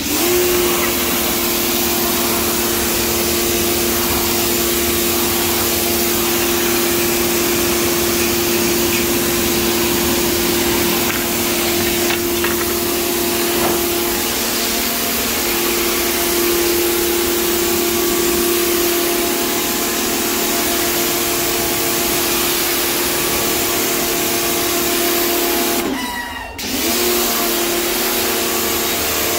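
Pressure washer running: a steady motor-and-pump hum under the hiss of the spray on the tiles. It starts suddenly, cuts out briefly near the end as the trigger is let go, and starts again.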